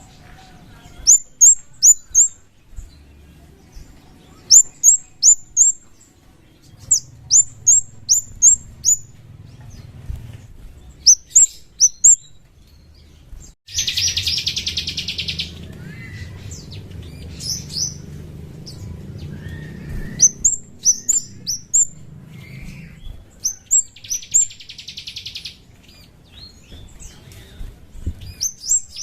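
Scarlet-headed flowerpecker (kemade) calling: repeated groups of three to five short, sharp, high chirps, each sliding downward. Three harsh, buzzy rattles of about a second and a half break in: one near the middle, one near the end, and one just at the close.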